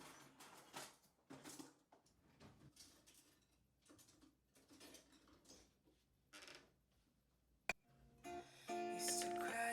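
Faint, scattered rustling and handling noises, then one sharp click. About eight seconds in, acoustic guitar music starts, strummed and plucked, and it is the loudest sound.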